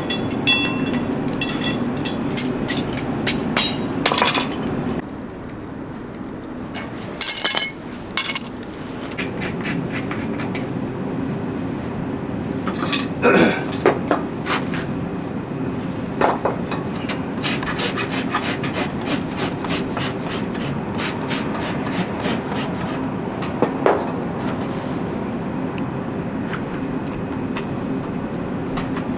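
Farrier's tools scraping and rasping a horse's hoof wall in a long series of uneven strokes and clicks, with a steady low hum underneath.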